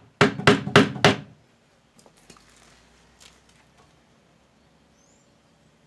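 Four quick, sharp knocks of a hand tool against a wooden joint, about a third of a second apart, followed by a few faint clicks.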